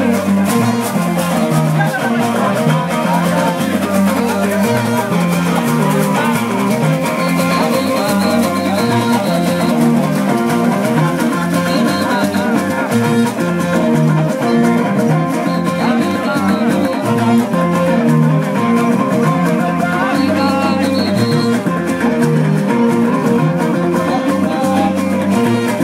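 Music with plucked guitar over a steady rhythm and a stepping bass line.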